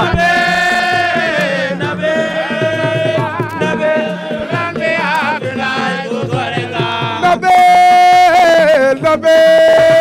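A voice singing into a microphone in long held, wavering notes over a steady drum rhythm. The loudest held notes come in the last few seconds.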